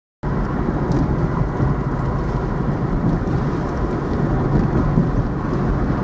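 Steady rumble of a car driving along a street, heard from inside the cabin, starting abruptly just after the start.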